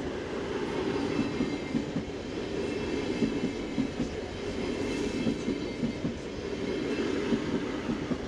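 Two coupled ES1 Lastochka (Siemens Desiro RUS) electric multiple units passing close by: a steady rolling rumble of wheels on rail with a dense, irregular run of wheel knocks.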